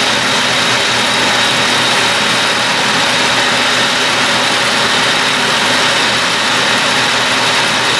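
Clausing Model 6329 metal lathe running steadily with its carriage moving under power feed: an even machine whir with a thin high whine over it.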